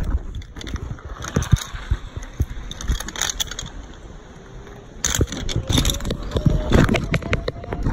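Rustling, scraping and irregular knocks of a handheld phone being jostled, with crunching steps, louder in two spells. A faint thin whine rises slowly in pitch through the second half.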